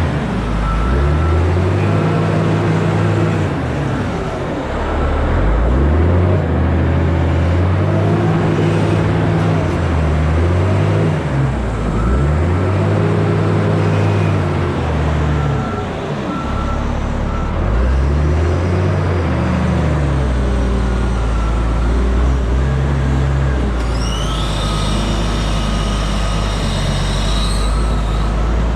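Heavy diesel truck engine pulling through the gears: its pitch climbs, drops back at each shift and climbs again about five times, then holds steady. A faint high whistle comes and goes near the end.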